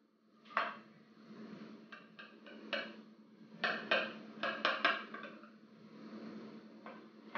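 A kitchen knife cutting moussaka in a baking dish, its blade clinking and knocking against the dish in a series of short, sharp strokes with pauses between them.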